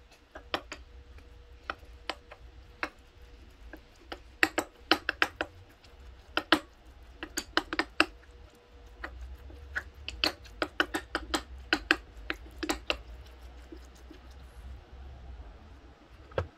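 Ceramic spoon clinking and scraping against a ceramic bowl as curry and rice are stirred, in irregular runs of sharp clinks. Near the end, a single knock as the waffle maker's handle is taken.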